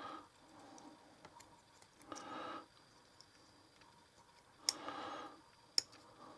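Small metal parts of a folding knife clicking as it is put back together by hand: a few sharp clicks, one near the start and two close together near the end, with faint handling noise between.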